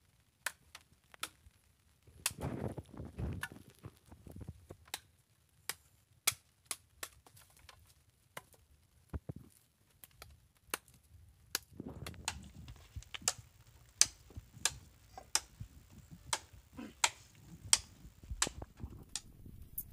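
Wood fire of fresh sticks crackling, with irregular sharp pops that come more often in the second half, over a low rumble that rises twice.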